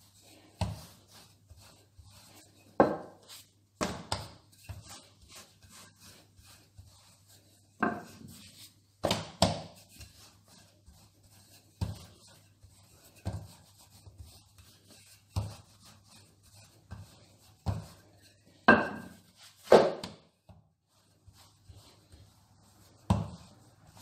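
Wooden rolling pin rolling over laminated dough and knocking on a granite countertop: irregular knocks about every second or two, two louder ones close together about three-quarters of the way through.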